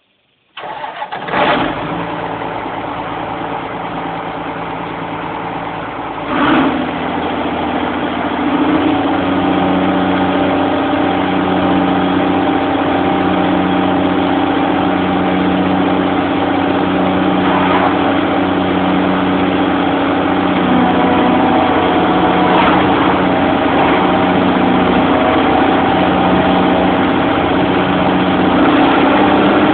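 A Chisholm Ryder Multi Density self-propelled bean harvester's engine starting about half a second in and then running steadily. About six seconds in the sound steps up louder, and a steady whine joins with a regular pulsing about once a second.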